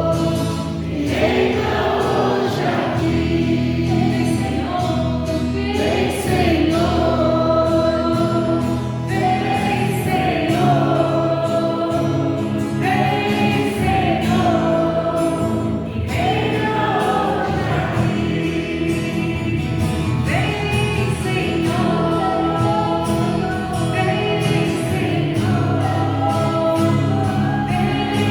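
Christian worship music: a choir singing a gospel song over instrumental backing with sustained bass notes.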